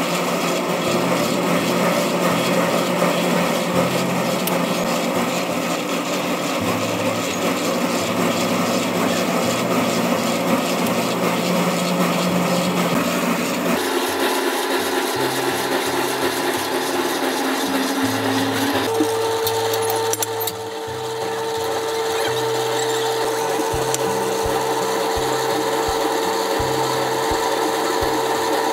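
Shovels scraping and scooping through a pile of sand and cement, mixing it by hand, with continuous gritty rasping. A steady hum comes in about two-thirds of the way through.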